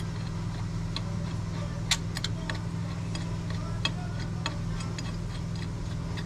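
Irregular light metallic clicks and taps of hand tools and bolts against metal parts while a bracket is fitted in an engine bay, over a steady low hum.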